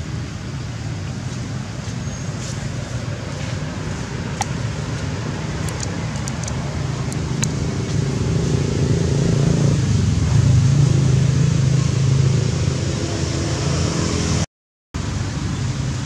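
A motor vehicle's engine hum, swelling louder through the middle of the stretch and then easing off, with a few faint clicks over it. The sound cuts out for an instant near the end.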